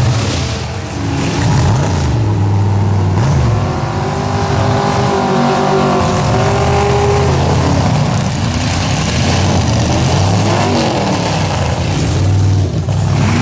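Modified Dodge Ram mud-bog truck's engine revving hard, its pitch rising and falling several times as it pushes through deep mud.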